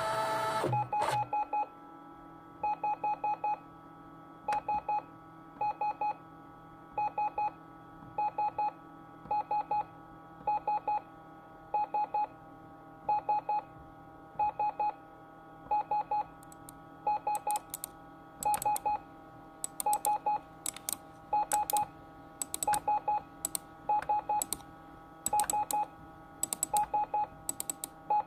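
Electronic beeping: clusters of three short, high beeps repeat about every 1.3 seconds over a steady electronic hum, after a brief louder tone at the start. From about halfway through, sharp clicks come in among the beeps and grow more frequent.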